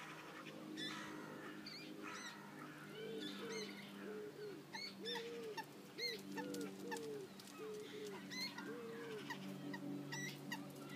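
Moorhen chicks calling with short, high thin peeps, along with a run of lower, arched calls repeated about twice a second through the middle, over a steady low hum.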